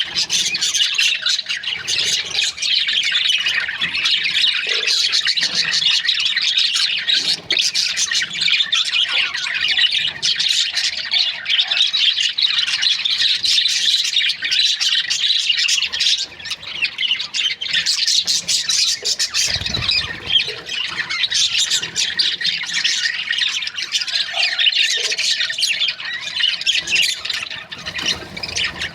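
A flock of budgerigars chirping and chattering continuously, many short, high calls overlapping with no break.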